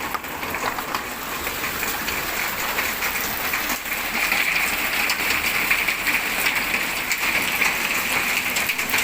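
Heavy hailstorm with rain at night: large hailstones clattering on hard surfaces as a dense patter of sharp ticks over a steady rush of rain. It grows a little louder about four seconds in.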